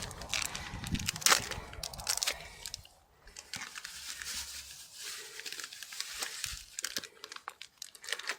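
Crackling, crinkling and scraping handling noises as garden pitch is worked and smeared onto a sawn tree-branch wound. The noises are dense for the first three seconds, then become sparser crackles.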